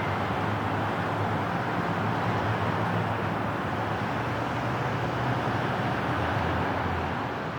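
Steady low engine hum under an even rushing noise, the kind a large car ferry's engines and wash make, running without change until it dips slightly at the very end.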